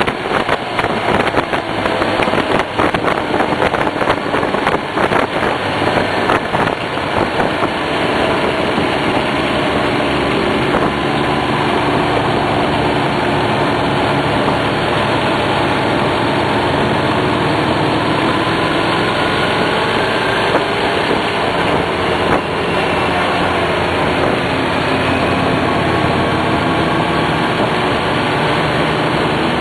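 Hyosung GT250R motorcycle's 250 cc V-twin engine running, with rough, uneven noise over it for the first several seconds, then a steadier engine note whose pitch rises and falls.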